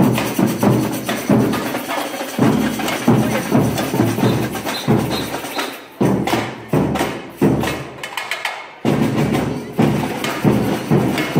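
Marching street drum band playing a steady rhythm on large shoulder-slung bass drums, with strong beats about every half second.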